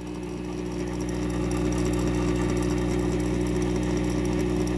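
Loud steady mains hum with a buzzy hiss from the 1951 RCA Victor 45-EY-4's tube amplifier through its speaker, swelling over the first second or two, then holding level. The hum comes from leaky, failed electrolytic filter capacitors that need replacing.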